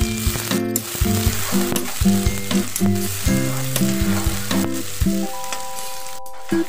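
Sliced onions sizzling in hot oil in a kadai as they are stirred with a spatula, under background music with a melody of held notes. Both break off briefly near the end.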